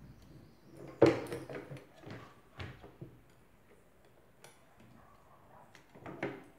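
Steel coil-spring compressor clamp clanking and clicking against a strut's coil spring as it is fitted on by hand. One loud metal clank about a second in, then several lighter clicks and another knock near the end.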